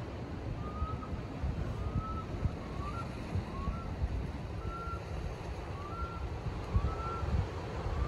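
Wind buffeting the microphone with a low, gusty rumble, and behind it a run of short high chirps, some rising and some falling in pitch, about one a second.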